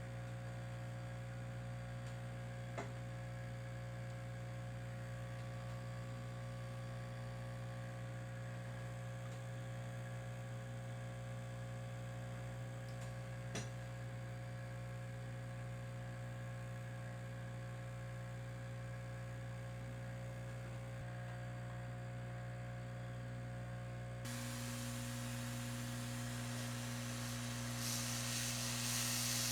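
Steady electrical mains hum with several overtones, broken only by two faint clicks. About 24 seconds in, a hiss and a second hum tone join in and grow louder near the end.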